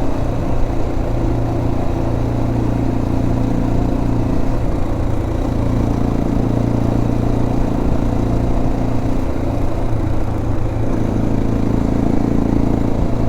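Motorcycle engine running steadily at an even speed, with a constant low drone.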